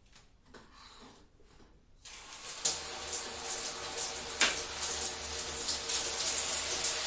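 After a near-silent start, a shower is turned on about two seconds in and runs steadily, the spray hissing and splattering, with a few sharper splashes.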